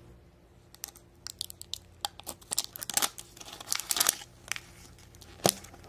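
Crinkling and tearing of a surprise egg's wrapper as it is peeled off the plastic capsule by hand: quick irregular crackles, then a single sharp click near the end.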